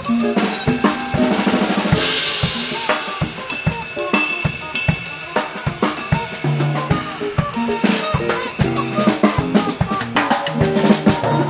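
Drum kit played busily in a Latin jazz groove: snare, rimshots and bass drum, with a cymbal crash about two seconds in. Pitched notes from the band sound underneath.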